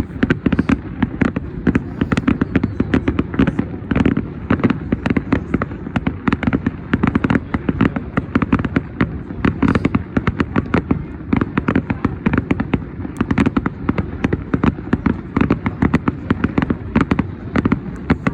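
Dense fireworks barrage: sharp bangs and crackling reports coming several a second, without a break.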